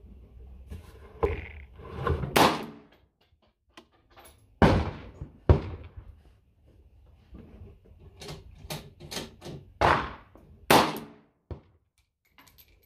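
Gunshots at uneven intervals: about five loud shots, with several fainter ones between them.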